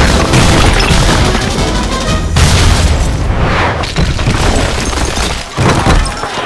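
Action-film soundtrack of heavy booms and crashing debris over dramatic background music, with a brief drop about five and a half seconds in before another hit.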